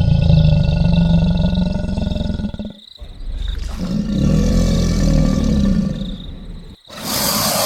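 Crocodile bellowing: two long, deep, pulsing calls of about three seconds each, followed near the end by a loud rushing noise.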